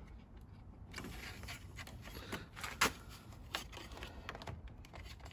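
Scattered light plastic clicks and creaks from a BMW E91's kidney grille as its clip tabs are pushed in and the grille is worked loose from the bumper, with one sharper click a little over halfway through.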